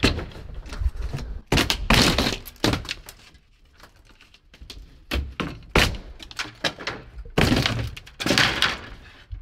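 Brad-nailed cedar ceiling planks being torn down inside a van: wood cracking and crashing down in several bursts with short pauses between. The ceiling gives way easily because it was held only by brad nails, not screws.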